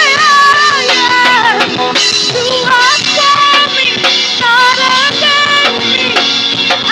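Live church worship music: a drum kit keeping a steady beat under a full band, with a wavering lead melody over the top.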